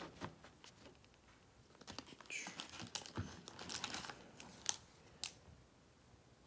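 Trading cards and a card-pack wrapper being handled: soft rustling and crinkling from about two seconds in, with two sharp clicks a little past the middle.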